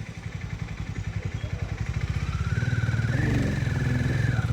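Harley-Davidson X440's single-cylinder engine pulling under throttle: its low exhaust pulse grows louder about two seconds in and holds, with a higher whine rising along with it.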